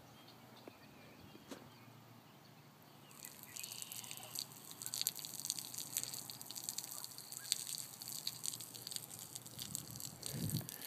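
A person urinating onto gravel: a stream of liquid splashing on the stones, starting about three seconds in.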